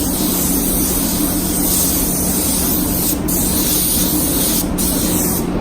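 Spray gun spraying high-build primer: a steady, loud hiss of atomising air over a low steady hum. The hiss at the top breaks off briefly a couple of times, as the trigger is let go between passes.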